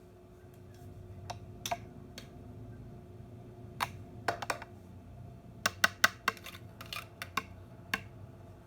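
Irregular sharp cracks and snaps of something crunchy breaking under a slowly rolling car tyre, coming in two quick clusters, over a steady low hum.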